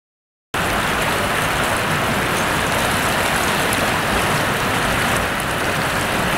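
Shallow river riffle rushing steadily, starting abruptly about half a second in.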